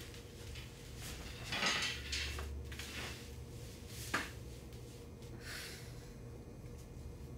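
A person climbing onto the top bunk of a metal-framed bunk bed and settling in: rustling of the mattress and bedding, a single sharp click from the frame about four seconds in, and a softer rustle afterwards, over a faint steady room hum.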